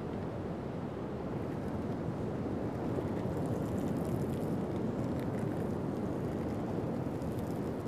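Pacific Ocean surf breaking on a sandy beach: a steady low rumble and wash of waves that swells a little a few seconds in.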